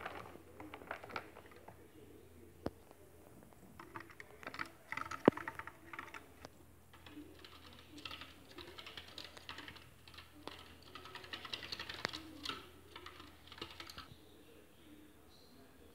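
Pet chipmunk running in a wooden exercise wheel: a rapid, irregular clicking patter of its claws on the wood, with one sharp louder click about five seconds in. The patter dies away near the end.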